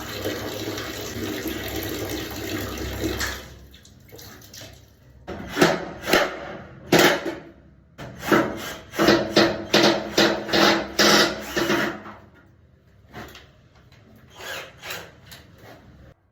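Water running steadily, cutting off after about three seconds. It is followed by a string of short, sharp knocks or clatters, about a dozen over seven seconds.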